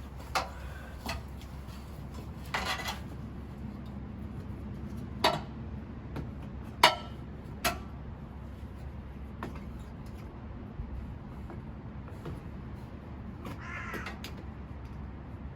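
Scattered sharp clicks and knocks, like objects being handled and set down, over a steady low hum, with two short rasping sounds, one about three seconds in and one near the end.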